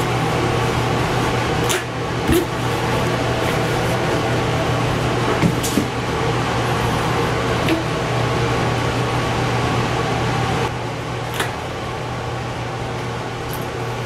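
Steady mechanical hum with a low tone and a fan-like hiss. On top of it come a few light clicks, knocks and rustles as the fridge/freezer's insulated cover is pulled back and its lids are opened.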